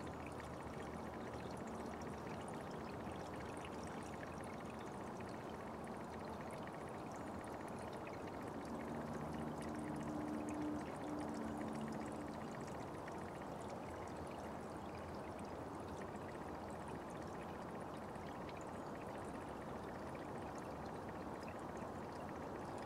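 Small forest brook running steadily, an even rush of flowing water. For a few seconds near the middle, a faint low hum sits under it.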